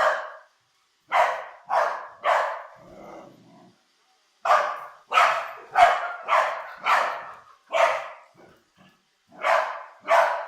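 Dog barking repeatedly in quick runs of about three to five barks, with a brief low growl about three seconds in, agitated by an iRobot Roomba robot vacuum.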